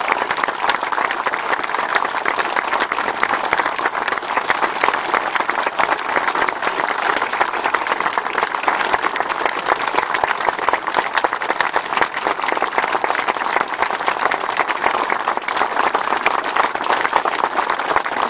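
A crowd applauding, many people clapping steadily without a break.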